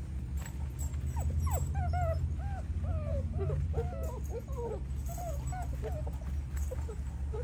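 A litter of eight-week-old American bully puppies whining and yelping, many short rising-and-falling cries overlapping through the first few seconds and thinning out near the end, over a steady low rumble.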